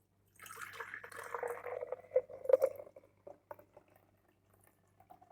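Cooled orange-peel and cinnamon brew poured through a strainer: a pouring stream for about a second and a half, then a few drips trailing off.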